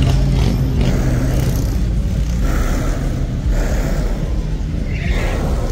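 A Cadillac DTS sedan driving slowly past, with a steady deep rumble.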